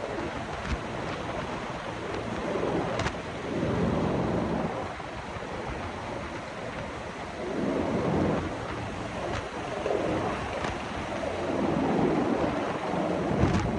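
Rushing wind noise buffeting the microphone, swelling and easing every few seconds.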